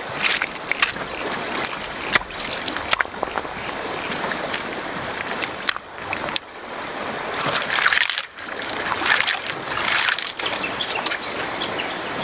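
Shallow stony river running, with splashing as hands work in the water and sharp clicks of river rocks knocked together as they are set down in the streambed; two louder bouts of splashing come about two-thirds of the way through.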